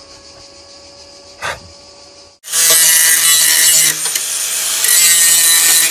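Metalworking on a Volkswagen T3's steel bodywork: after a quiet stretch with a single click, a loud, even tool noise starts suddenly about halfway through and keeps going, dipping briefly twice.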